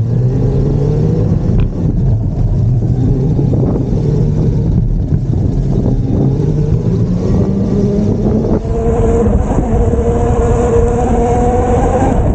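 Electric bike motor whining under load while riding on dirt, its pitch rising slowly as the bike gains speed, over a steady low rumble of tyres and wind.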